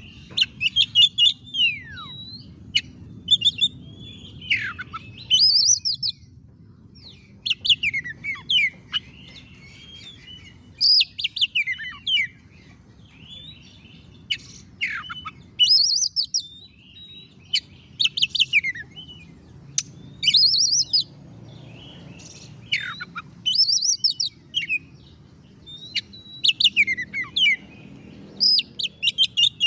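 Oriental magpie-robin in full song: loud, varied phrases every second or two, mixing rapid chattering note runs with sharp whistles that slide down in pitch.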